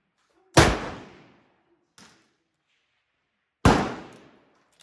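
Two loud rifle shots about three seconds apart, each ringing out briefly, with a faint click between them.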